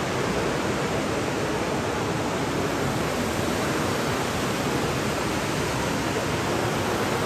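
Steady rushing noise of a fountain's running water.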